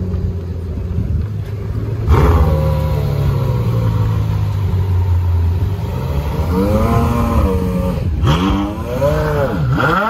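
Gemballa Mirage GT's V10 engine running: a steady idle, a sudden rev about two seconds in that falls away slowly, then a string of quick throttle blips, each rising and dropping in pitch, in the second half.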